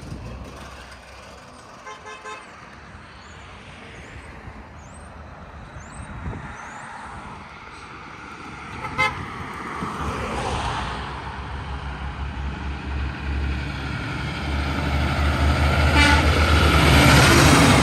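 Road traffic passing, with brief horn toots about 2, 9 and 16 seconds in. A heavy vehicle's engine rumble builds from the middle and is loudest near the end as it passes close by.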